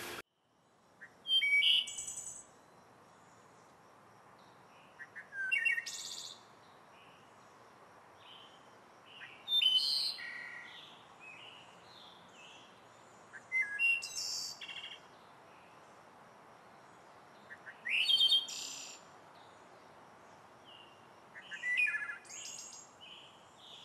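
A songbird singing short, high phrases about every four seconds, six in all, each lasting about a second, over a faint steady hiss.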